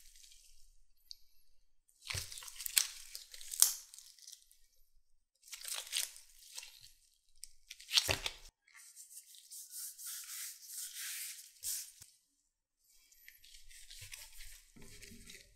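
Sticky persimmon glutinous rice dough stretched, folded and pulled by gloved hands on a silicone mat, making bursts of crackly tearing noise with short pauses between them. Near the end a dough scraper presses through the dough.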